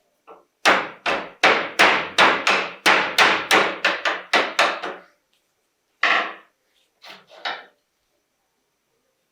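A hammer striking repeatedly, about three blows a second, each ringing out briefly: around a dozen blows, then a pause, one more blow and a final two.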